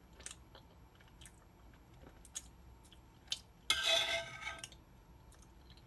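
Close-miked chewing of chocolate cake and custard, with soft wet mouth clicks. About four seconds in there is one louder, noisier sound lasting about a second.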